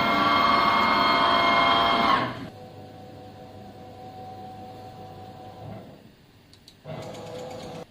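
CNC router running with a steady, many-toned machine whine, loud for about the first two seconds. It then drops to a quieter whine at two pitches, falls nearly silent around six seconds in, comes back about a second later and stops abruptly.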